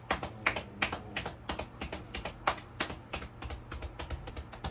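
An open hand patting a man's upper back and shoulder through a T-shirt in a light, even rhythm of about three pats a second, as in a shoulder-tapping massage.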